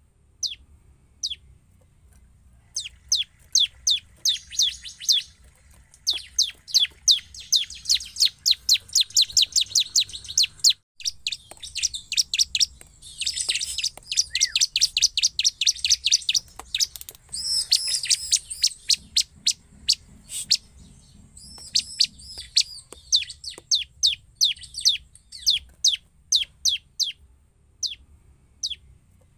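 Bar-winged prinia (ciblek) singing: rapid runs of sharp, high chirps that start sparse, thicken into dense, fast trills through the middle with a brief break, then thin out again.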